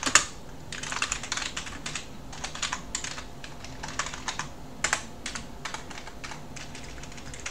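Typing on a computer keyboard: irregular keystroke clicks in quick runs with short pauses between them, as shell commands are entered.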